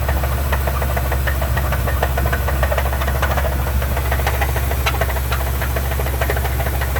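Truck engine running with a steady, rapid knocking from inside the motor: rod knock, the sign that something has broken in the engine.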